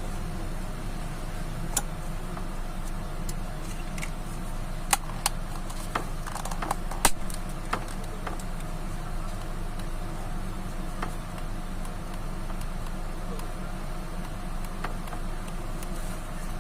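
Small sharp clicks and taps from handling a Suzuki Swift key fob, a handful of them clustered in the middle, over a steady low hum.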